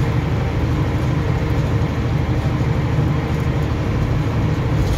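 Unimog truck's engine and drivetrain running steadily while driving, heard from inside the cab as a constant low hum.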